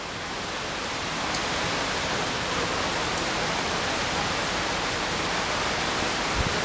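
Heavy rain and strong cyclone winds: a steady rushing noise that builds a little over the first second or so, then holds.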